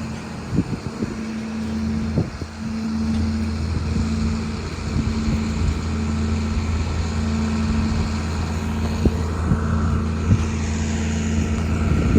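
Steady low machine hum, with wind buffeting the microphone.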